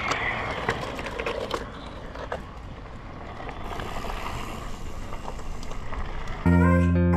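Mountain bike tyres rolling over a dry dirt trail and fallen leaves: a steady rough rustle with a few scattered clicks. Guitar-and-bass music comes in suddenly near the end.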